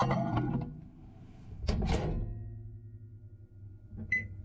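A few clattering knocks, then a microwave oven door thunks shut about two seconds in. The oven then hums steadily, and a high electronic beep sounds near the end.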